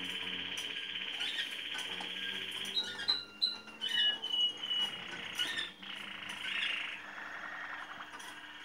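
Malinois (Waterslager) song canary singing: a long, fast rolling trill, then about three seconds in a louder run of clear whistled notes and sliding tones, and near the end a lower, slower roll.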